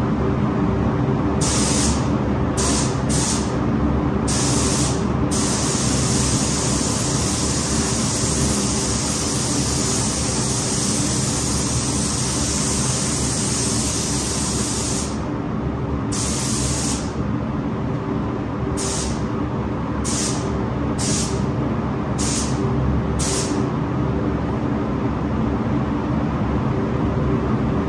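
Compressed-air spray gun hissing as clear coat is sprayed onto a transmission case: several short trigger pulls, one long continuous pass of about ten seconds, then a run of short pulls. A steady low mechanical hum runs underneath.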